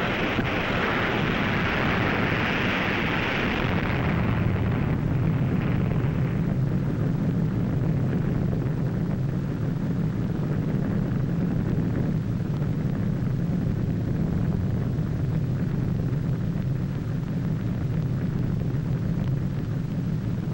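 Roar of an atomic bomb blast on the film soundtrack: a hissing rush that fades about four seconds in, leaving a steady low rumble.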